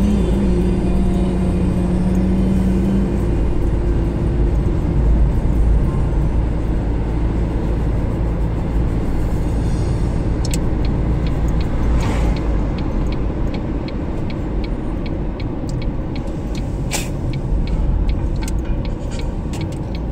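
Steady engine and road noise heard inside a moving car's cabin. From about halfway through, a fast regular ticking starts, the turn indicator clicking as the car prepares to turn off.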